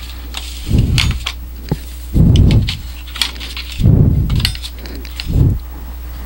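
Handling noise: four dull low thumps about every second and a half, with light sharp clicks between them, over a steady low hum.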